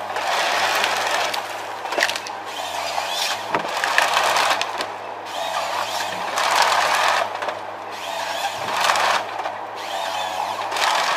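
Forestry harvester's Kesla head processing a felled spruce: branches crack and snap in repeated bursts about every second or so as the stem is gripped and fed through, over the steady hum of the machine's engine.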